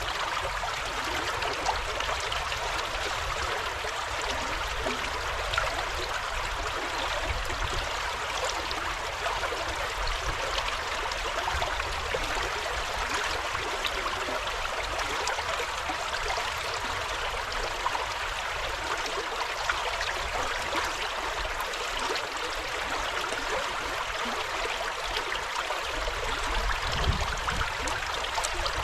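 River water flowing, a steady rushing with scattered small splashes throughout, and a brief low rumble near the end.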